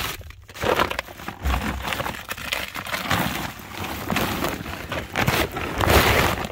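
A heavy sack of horse manure being tipped and shaken out into a compost heap: the sack rustling and the manure tumbling out, with dull thumps about a second and a half in and near the end.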